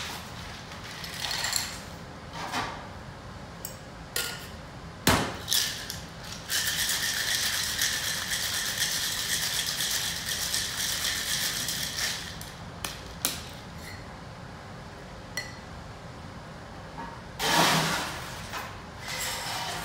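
Ice clinking against glass and metal, a sharp knock about five seconds in, then ice rattling hard inside a stainless-steel cocktail shaker tin for about five and a half seconds as a drink is shaken. Near the end, a short loud clatter of fresh ice going into a glass.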